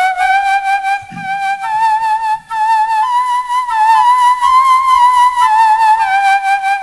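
A slow solo melody in a flute-like tone with vibrato: long held notes that climb gradually in pitch, with no accompaniment beneath them.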